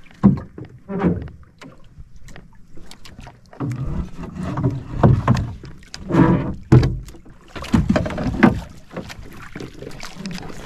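Water slapping and knocking against the hull of a small outrigger boat, in irregular splashes and thuds of uneven loudness.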